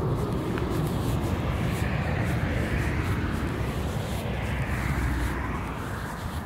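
A motor vehicle passing by: a low rumble with a rushing noise that swells over the first couple of seconds and fades toward the end.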